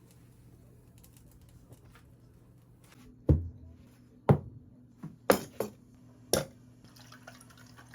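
Six short, sharp taps or knocks with a brief ring after each, coming at uneven intervals over about three seconds, starting about three seconds in.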